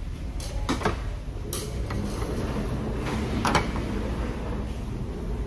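A few short clinks and knocks of dishes and utensils being handled on a table, the loudest about three and a half seconds in, over a steady low rumble of room noise.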